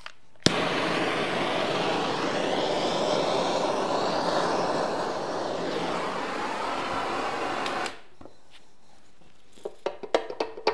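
Electric heat gun switched on with a click and blowing steadily for about seven seconds, then cut off, as heat is put on the gearbox case. A few light knocks near the end as the case is handled.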